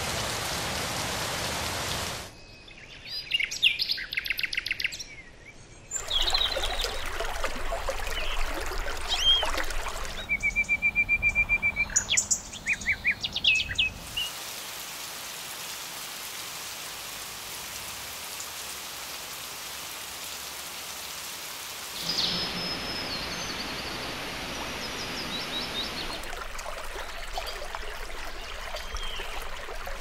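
A montage of nature recordings that changes abruptly several times. A steady rush of rain gives way to songbirds singing trills and repeated whistled notes for about twelve seconds. Then comes steady rain again, and near the end running water with birds calling over it.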